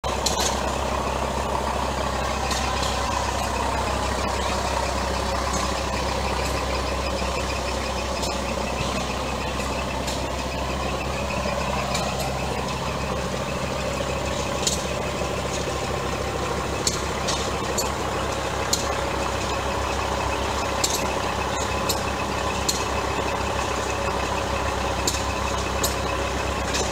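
Antique Ford delivery truck's engine idling steadily, with scattered sharp clicks.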